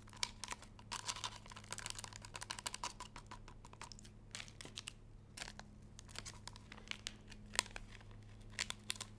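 Small powder sachets crinkling and tearing as they are opened one after another: many short crackles and rustles, some sharper than others.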